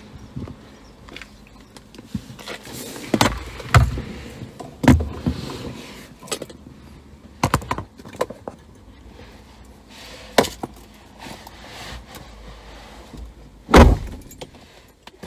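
Knocks, thumps and rustling of someone getting into a car and settling into the driver's seat, with a handbag being handled. The loudest thump, near the end, is the car door shutting.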